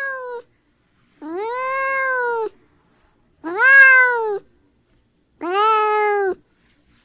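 A cat meowing: three long, drawn-out meows about a second apart, each rising and then falling in pitch, the middle one the loudest, after the tail end of another meow at the start.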